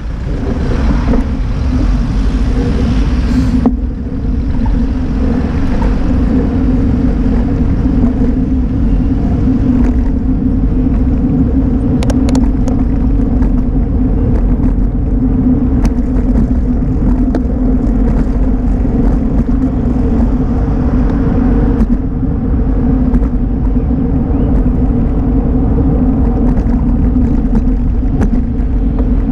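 Wind rushing over a bicycle-mounted camera's microphone, with tyre rumble on asphalt and a steady low hum, while the bike is ridden along a road.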